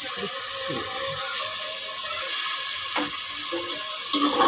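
Moong dal frying in spiced oil in an aluminium pot, sizzling steadily as water is tipped in and it is stirred with a slotted metal spoon, with a brief louder hiss about half a second in.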